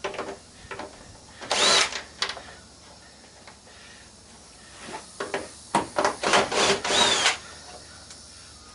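Cordless drill/driver spinning Phillips screws out of a CRT monitor's plastic casing. A brief run of the motor comes about a second and a half in, then several short runs close together from about five and a half to seven and a half seconds, each whirring up and back down in pitch. Light clicks and knocks of the bit and casing come between the runs.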